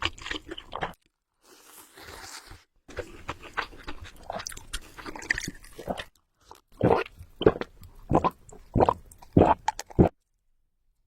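A person eating close to the microphone: crunchy bites and chewing, with loud crunches about twice a second in the second half, stopping about ten seconds in.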